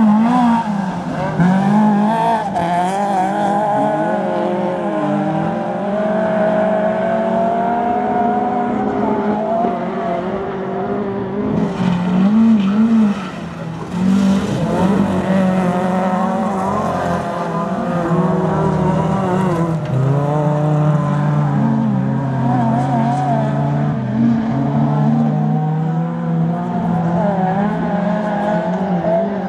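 Several small-displacement autocross cars (1600 cc class) racing on dirt. Their engines rev hard and change up and down through the gears, overlapping, with the pitch rising and falling. One car passes close about twelve seconds in.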